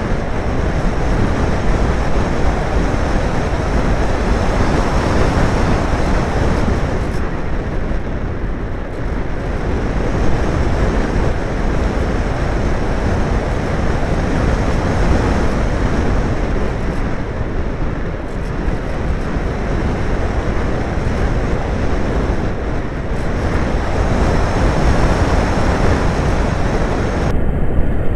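Wind rushing over the onboard camera of an unpowered discus-launch glider in flight: a loud, steady rush of air with no motor, easing and swelling a few times.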